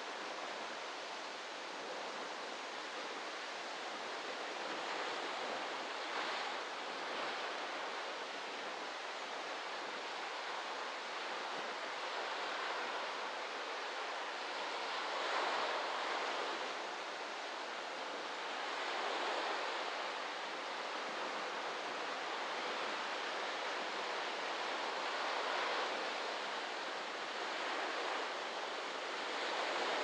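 Waves breaking and washing onto a beach, a continuous rushing hiss of surf that swells every few seconds as each wave comes in.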